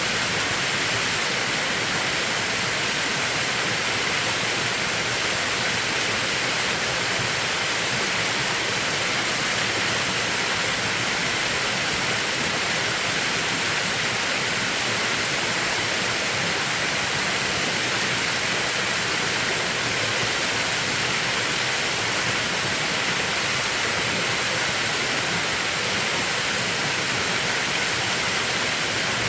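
Mountain valley stream, its water rushing steadily with no break.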